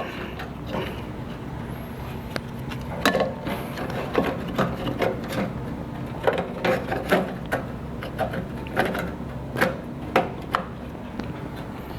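Irregular clicks, knocks and scraping from hand tools and metal parts as a replacement high-voltage capacitor is screwed into an opened microwave oven, over a steady low hum.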